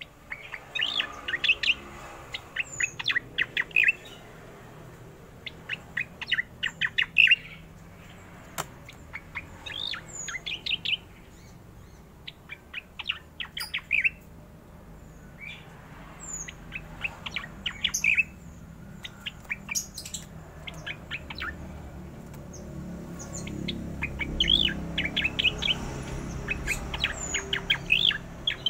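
Cucak koreng calling in rapid rattling, rolling trills, bursts of a second or two repeated every few seconds, with short high chirps between them. A low rumble swells in the background near the end.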